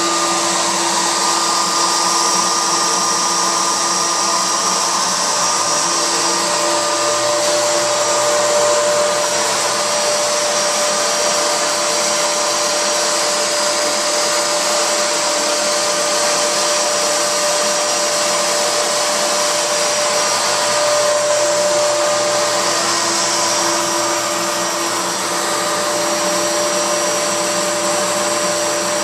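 Homemade CNC router table's router running steadily as its bit carves a board, over the steady rush of a dust collector. A few whining tones start and stop along the way.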